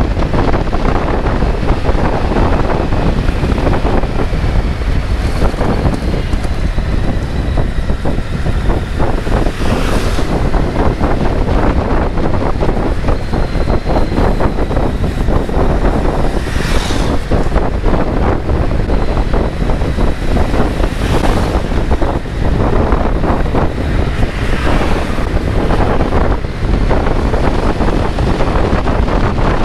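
Wind rushing over the microphone of a rider on a moving Kawasaki Z900 motorcycle, a loud steady rumble of air and road noise with the bike's inline-four engine running underneath. There are a few brief louder rushes of air along the way.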